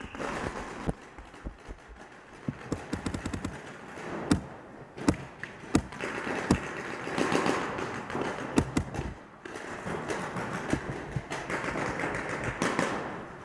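Paintball markers firing many sharp shots at irregular spacing, some in rapid strings.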